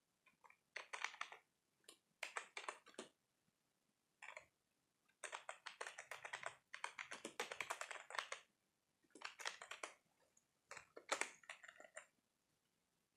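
Computer keyboard typing, quiet, in several quick runs of keystrokes with short pauses between them.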